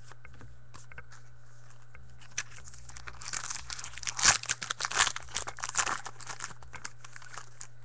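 Foil wrapper of a trading card pack being torn open and crinkled by hand: a few scattered crackles, then a dense burst of crinkling from about three seconds in until near the end.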